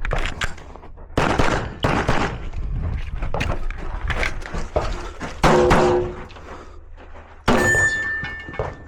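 Glock 34 9mm pistol fired in quick strings of shots with short pauses between, during a practical shooting stage. Near the end a steady ringing tone sounds, as from a hit steel target.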